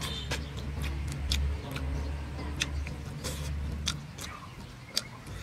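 Close-up eating sounds: sharp smacks and clicks of a mouth chewing roasted duck meat pulled apart by hand. Under them runs a low, steady engine hum that fades out about four seconds in.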